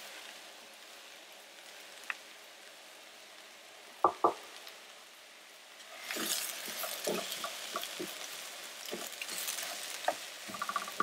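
Vegetables sizzling faintly in a frying pan as arborio rice is poured in, with two sharp knocks about four seconds in. From about six seconds a wooden spatula stirs the rice, mushrooms and vegetables around the pan: louder sizzling with quick scraping clicks.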